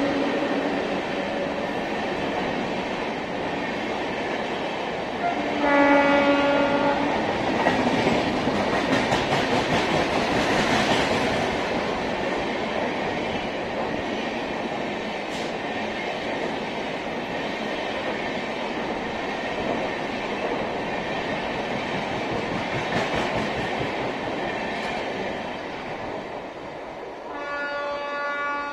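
Indian Railways LHB passenger coaches rushing past at high speed, wheels clattering over rail joints in a steady rumbling rush. A train horn sounds for about a second about six seconds in. The rush eases and fades, and near the end another steady horn begins.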